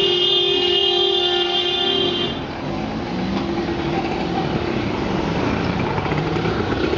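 A horn holds one long steady note that cuts off about two seconds in, followed by vehicle running noise.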